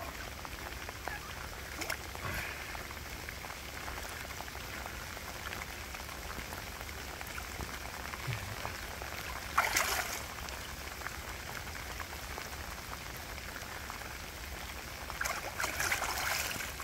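Rain falling steadily on shallow water. Water splashes about ten seconds in and again near the end as a large grass carp is released by hand and swims off.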